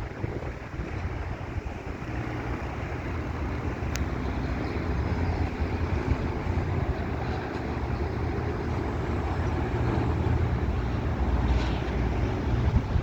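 Jet engine noise from a Boeing 737-800's CFM56 engines: a steady low rumble that slowly grows louder.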